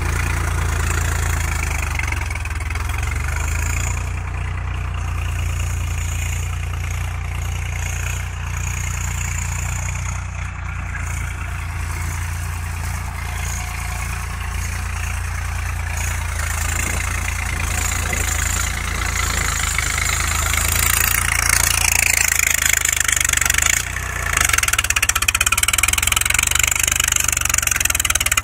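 Swaraj 744 FE tractor's three-cylinder diesel engine running steadily while pulling a harrow. It fades somewhat as the tractor moves off across the field and grows louder again in the last third as it comes close.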